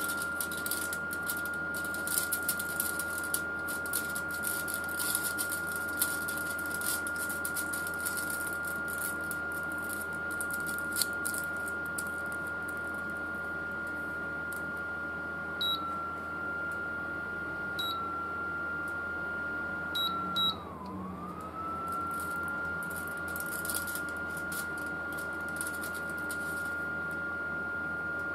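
Newwave induction cooker's cooling fan running with a steady high whine, while aluminium foil is crinkled and pressed onto the glass top, giving scattered crackles. About two thirds of the way through come four short beeps from the cooker's control panel, and right after them the fan's whine dips briefly and climbs back.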